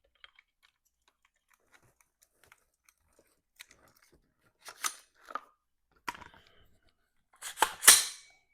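Smith & Wesson M&P15 AR-15-type rifle being handled and its action worked: a run of light metallic clicks, then sharper clacks, ending in two loud metal clacks close together near the end.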